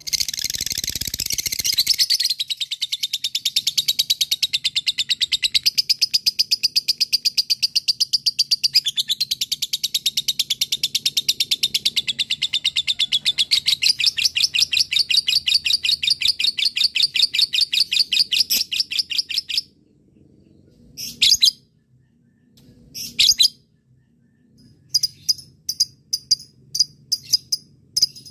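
Lovebird giving a long, rapid chattering trill ("ngekek panjang"): a fast unbroken string of high chirps that goes on for about twenty seconds and then stops. A couple of short calls follow, and near the end a string of sharp single chirps.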